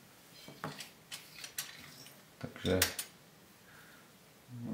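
A few light clicks and taps of small objects handled on a tabletop: one about half a second in, then a quick cluster about a second later.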